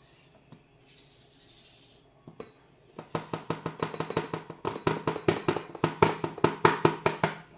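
A soft hiss about a second in, then from about three seconds in a utensil strikes a mixing bowl in a fast, even rhythm of about five or six sharp clinks a second while flour goes into the bowl.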